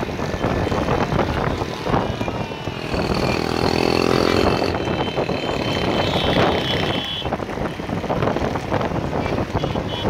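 Many small motorcycle engines running together at speed, with wind buffeting the microphone; a pitched tone stands out above the noise for a second or two around the middle.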